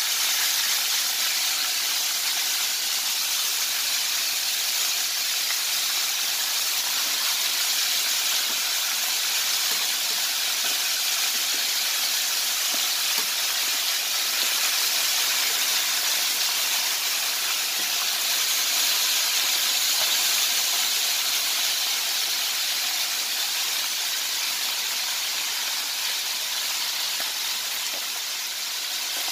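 Hot oil sizzling steadily around flour-dredged chicken wings deep-frying in a pan.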